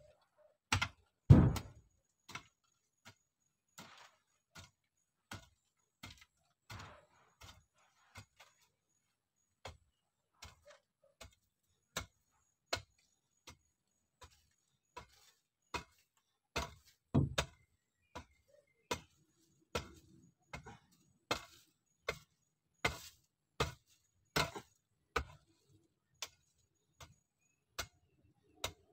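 A long-handled digging tool chopping and scraping into packed soil: a string of sharp strikes, roughly one a second, with a few heavier thuds.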